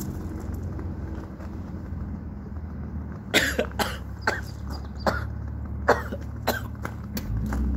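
A man coughing hard in a rapid fit, about nine harsh coughs starting a few seconds in, from breathing the irritant pepper smoke of a homemade cough-fog smoke device.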